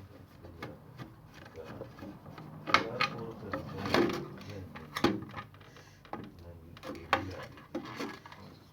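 Irregular clicks and knocks of a screwdriver and small metal and plastic parts being handled while screws are undone to get at a refrigerator's defrost timer.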